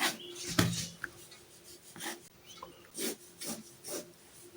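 Quick scratching strokes of a drawing tool on paper, about two a second, as straight converging lines are drawn. There is a louder low thump about half a second in.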